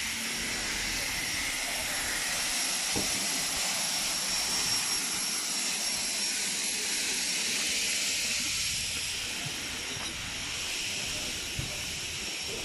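Steam locomotive blowing off steam: a steady, loud hiss that eases slightly near the end.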